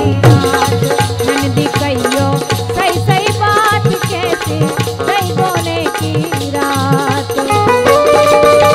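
Instrumental break in a Bundeli folk song: a wavering melodic lead line over a steady hand-drum rhythm and jingling rattle-type percussion.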